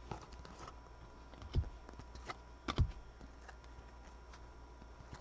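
Stiff foil trading cards being handled and shuffled in the hands: scattered light clicks and taps of card edges, with two louder dull knocks near the middle.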